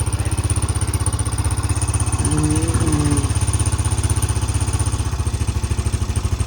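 Small off-road bike engine idling with a steady, rapid putter just after a cold start; the owners suspect it is starving for fuel and may need a carburettor clean.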